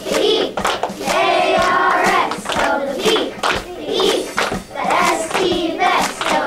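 A group of children singing their school song together in unison, clapping along in time.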